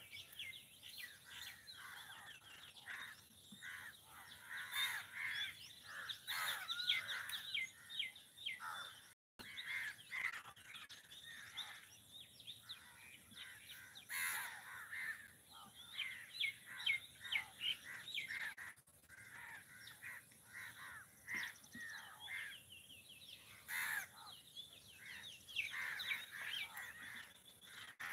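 A flock of birds calling over one another: a busy, unbroken run of short chirps and harsh calls. The sound drops out for a split second about a third of the way through.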